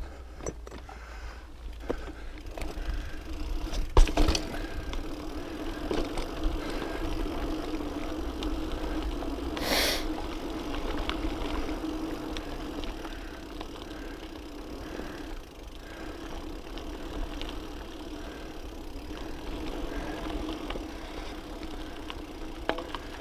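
Specialized Camber Comp 650b mountain bike rolling down a rocky dirt-and-gravel trail: a steady tyre-and-frame rattle over the loose surface, punctuated by sharp knocks from bumps, the loudest about four seconds in, and a brief hiss near the middle.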